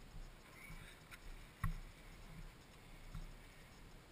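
A few faint clicks and knocks from hands working on the ATV's wiring, the sharpest a little over a second and a half in.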